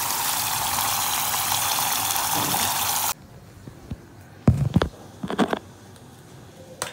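Tomato paste sauce sizzling in a hot pan, a steady hiss that cuts off suddenly about three seconds in. A few short knocks follow, with a click near the end.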